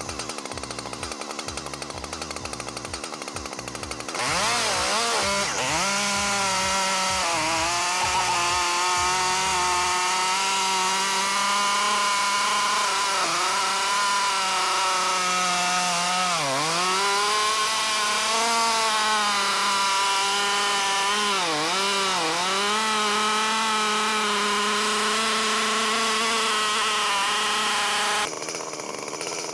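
Large two-stroke Stihl chainsaw revving up sharply about four seconds in and then running at full throttle, its pitch dipping briefly a few times as the chain takes load. It stops abruptly shortly before the end.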